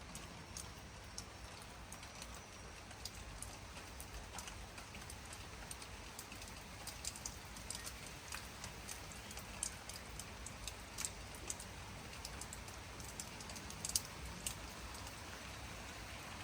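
Steady rain falling, with irregular close drops tapping and one louder drop near the end.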